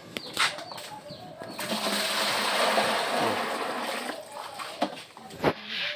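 Water rushing for about two seconds in the middle, with scattered sharp clicks and knocks before and after it.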